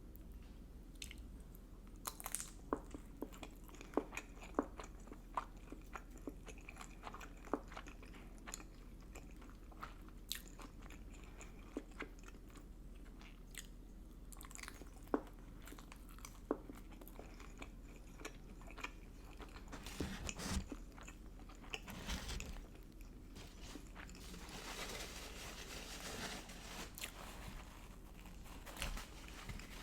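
A person biting into and chewing food, with scattered crisp clicks and crunches. A denser, crackly stretch of chewing comes a little past the middle.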